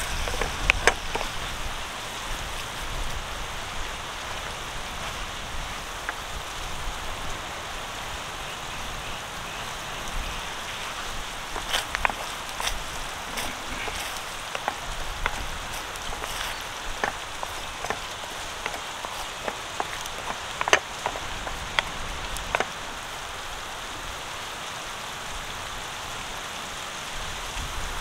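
Ketchup and chilli-flake sauce sizzling in hot oil in a pan over a wood fire, with a steady frying hiss and scattered sharp pops and clicks as it is stirred with a wooden spatula.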